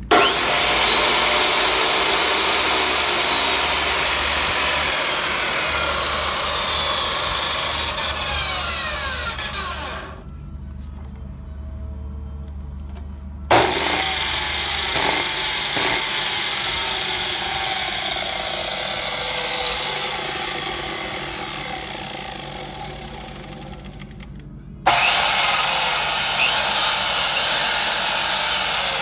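Two Ridgid 14-inch abrasive chop saws run one after the other with no cut: each motor switches on suddenly, runs at full speed for several seconds, then winds down with a falling whine once the trigger is let go. Near the end a Delta 10-inch miter saw starts up just as suddenly and runs at speed.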